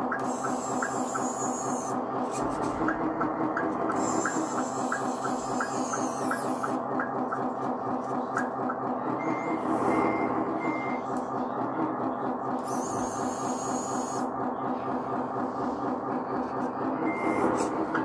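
Radio-controlled CAT 140H model grader with a diesel engine sound playing steadily. A high electric whine from the drive rises three times as it moves and falls away as each move stops. Three short reversing beeps come a little after halfway, and one more near the end.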